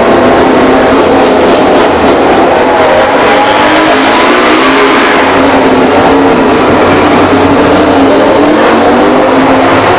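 Ducati Desmosedici GP21 MotoGP V4 engine running loud as the race bike pulls away and rides down the pit lane, its pitch wavering up and down.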